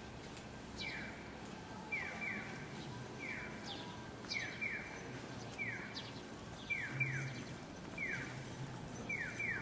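Japanese audible pedestrian crossing signal playing its electronic 'piyo' chick chirp, a short falling tone repeated about once a second in an alternating single, then double ('piyo… piyo-piyo') pattern, over low street noise.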